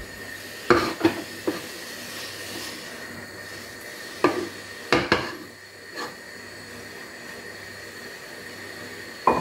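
Wooden spoon knocking and scraping against a non-stick pot as stiff ugali dough is pressed and turned: a handful of short, sharp knocks spaced irregularly, over a faint steady hiss.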